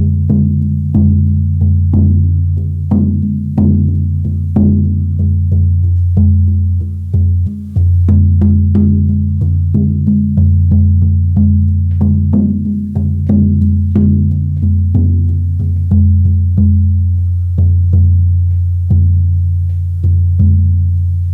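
Large buffalo-skin frame drum on a willow frame, played with a soft beater in a steady beat. Each stroke gives a deep, resonant tone that rings on into the next.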